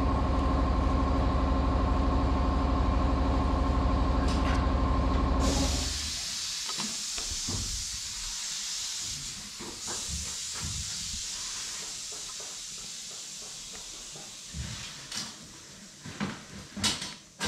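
A machine running steadily with a deep pitched hum cuts off about five seconds in. A steady hiss starts at the same moment and slowly fades, followed by a few light knocks and clicks near the end.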